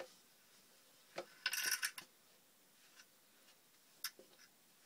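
Small handling noises at a workbench: a few light clicks and knocks, and a short rasping scrape about a second and a half in, the loudest sound here.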